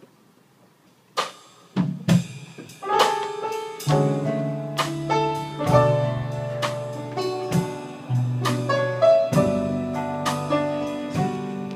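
A live band starts an instrumental introduction about a second in, with a run of sharply struck chords and notes over held low bass notes, in a jazz-ballad style. There is no singing yet.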